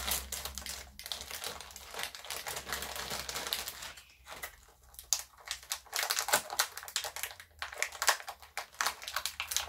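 Plastic blind-bag packaging crinkling as it is torn open by hand and the small wrapped toy inside is pulled out and unwrapped, with a short lull about four seconds in.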